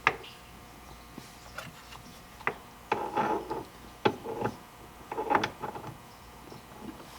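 Hand tools and metal parts clicking and rattling as the aftermarket steering hub is bolted onto the steering column: a few sharp clicks with short bursts of ratcheting clatter in between.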